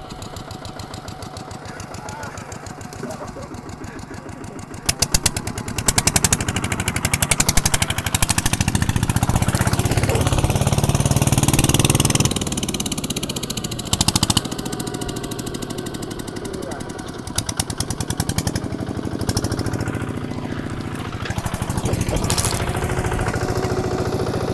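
Single-cylinder Kubota RT140 diesel on a two-wheel walking tractor, running under load as it pulls a plough through wet paddy mud, with a rapid, even chatter of firing strokes. It gets louder about five seconds in.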